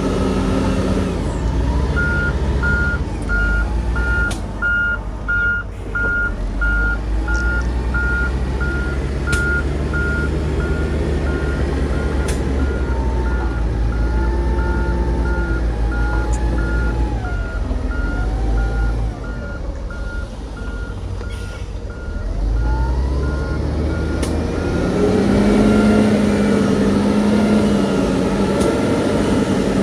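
Reversing alarm on a heavy construction vehicle beeping steadily, about two beeps a second, over a diesel engine running; the beeping stops a few seconds before the end as the engine picks up.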